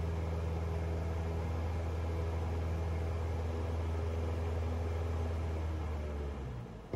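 Steady low engine drone heard from inside a vehicle, with an even hum that holds its pitch, fading away just before the end and followed by a short click.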